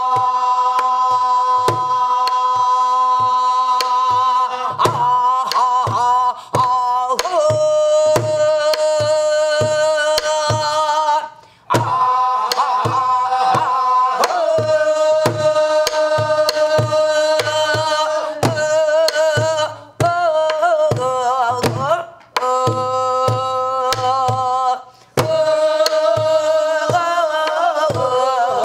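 A woman sings pansori in long held notes that waver and slide, with a few short breaths between phrases. She accompanies herself on a buk barrel drum, keeping the rhythm with steady low strokes and sharp clicks of the wooden stick.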